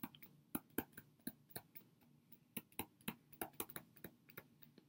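Stylus tapping and clicking against a tablet screen while handwriting: faint, irregular clicks, roughly four a second.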